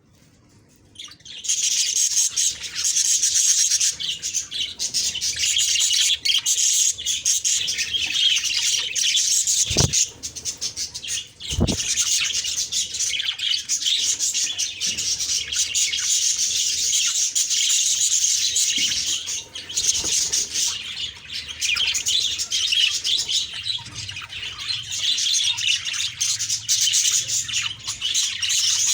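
Budgerigars chirping and chattering continuously, starting about a second and a half in, with two short low thumps around ten and twelve seconds in.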